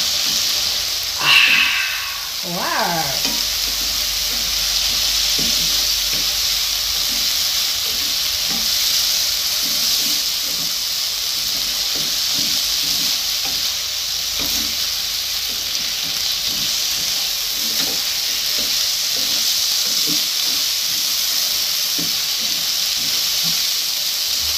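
Diced vegetables in soy sauce sizzling in a non-stick frying pan while a plastic spatula stirs and scrapes them, soft strokes repeating throughout. About a second in, a brief high cry falls steeply in pitch; it is the loudest moment.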